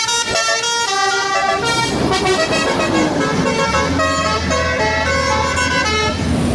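Bus's telolet basuri multi-tone horn playing a quick melody of stepped notes. The bus's engine rumble comes up underneath from about two seconds in as it passes, and the horn stops shortly before the end.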